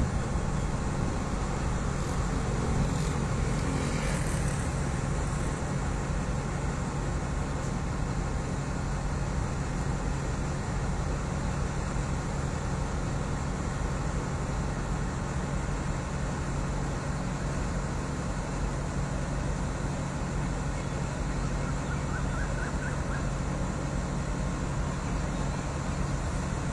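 Alsthom (ALS) diesel-electric locomotive with a Caterpillar engine idling, a steady low hum from the engine that holds level throughout.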